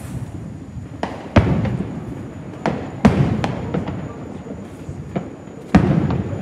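Aerial fireworks bursting: a series of sharp booms, the loudest about a second and a half, three seconds and nearly six seconds in, each trailing off in a rumbling echo.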